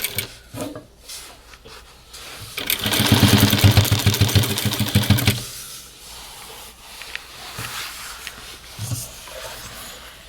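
Jack JK 9100-BH lockstitch industrial sewing machine stitching fast in a steady, rapid rhythm for about three seconds, starting about two and a half seconds in. Quieter clicks and fabric handling follow.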